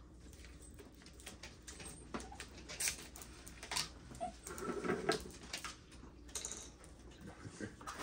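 A dog whining softly, with scattered small clicks and taps, the loudest stretch about halfway through.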